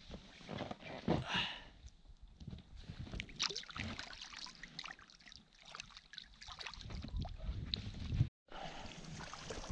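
Water sloshing and splashing at the side of an inflatable boat as a small trout is released by hand, with scattered light knocks and rustles against the boat. The sound cuts out briefly near the end.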